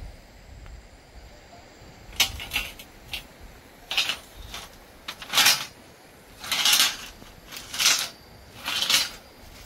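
Steel rebar rods clanking and scraping against one another as they are lifted and sorted by hand. The clanks start about two seconds in and come roughly once a second, some sharp and some drawn out like a scrape.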